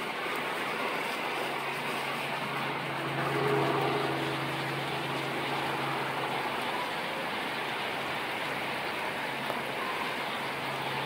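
Heavy rain falling steadily, a constant hiss, with a low steady engine hum underneath that swells briefly about three to four seconds in.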